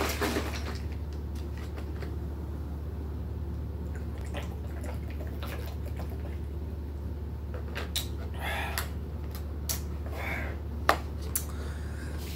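A man drinking juice straight from a carton, with swallowing clicks and breaths over a steady low hum. There is handling rustle at the start and a single sharp click a little before the end.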